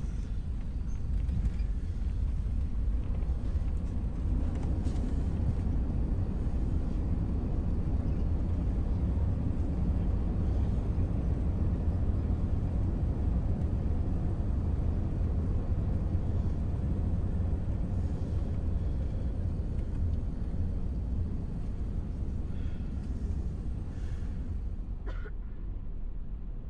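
Steady low rumble inside the cabin of an Airbus A380 rolling on the ground after landing: engine and wheel noise heard through the fuselage. It eases slightly near the end.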